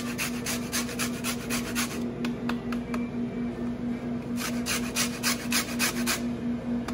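Citrus rind being grated on a metal box grater: quick rasping strokes, several a second. They stop for about two seconds midway, then start again.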